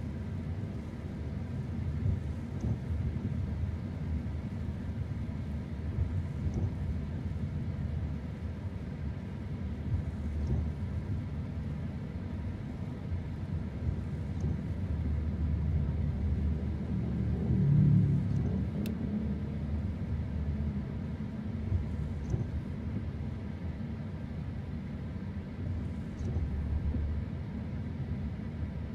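Car driving on the road: a steady low rumble of engine and tyre noise, swelling louder for a moment a little past the middle.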